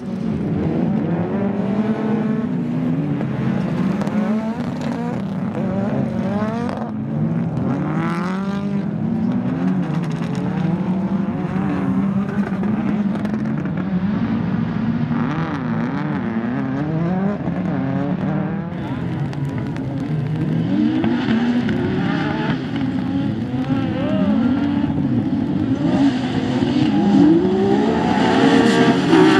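Autocross racing cars' engines revving hard, several at once, their pitch rising and falling again and again as they accelerate, lift and shift through the corners.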